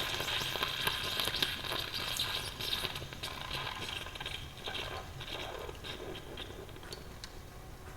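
Automated coffee machine near the end of its cycle: a steady hiss fades away, with scattered small crackles and clicks.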